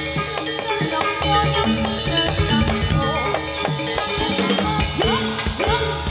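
Javanese gamelan music accompanying a jathilan trance dance: drums beating a steady rhythm over ringing metallophone notes, with some notes bending in pitch about five seconds in.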